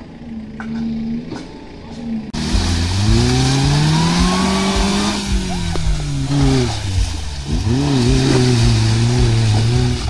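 Suzuki Jimny's engine revving hard while the 4x4 drives through mud, its pitch rising and falling several times. The loud engine comes in suddenly about two seconds in, after a quieter stretch.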